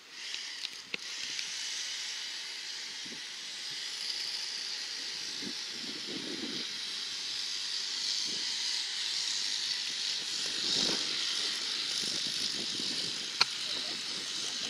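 Steady, dense high-pitched outdoor hiss, with a single sharp click near the end.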